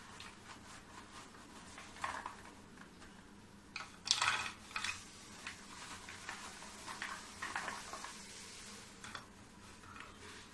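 Crisp fried namak pare rustling and clattering as handfuls are picked up and dropped onto a plate, in scattered bursts, the loudest about four seconds in.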